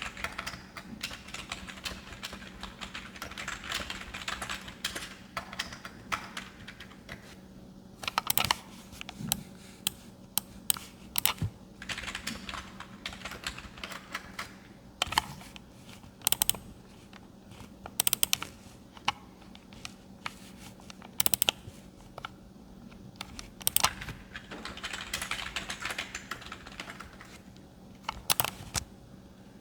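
Typing on a computer keyboard in bursts of rapid keystrokes, broken by louder single and double mouse clicks spaced a second or more apart, over a faint steady hum.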